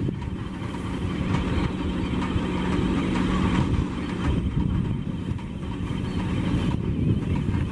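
Heavy construction machinery's diesel engine idling steadily: a constant hum over rough low noise.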